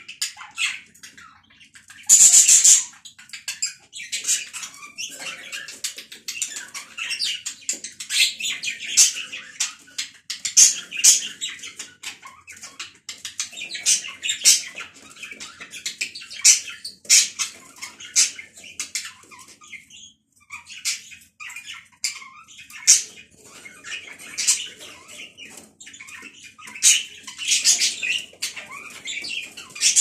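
Caged budgerigars chattering: a continuous stream of short chirps, clicks and warbling squawks. There is a short, loud rustling burst about two seconds in.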